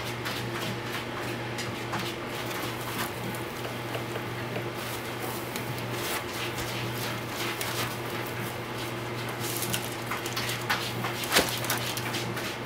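Handling noise: rustling and scattered small clicks as a carbon-fibre racing quadcopter is worked out of a tight foam insert in its case, over a steady low hum.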